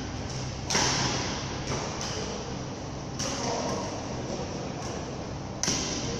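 Badminton rackets striking shuttlecocks in a large echoing hall: a string of sharp hits, the loudest about a second in and again near the end, over steady hall noise.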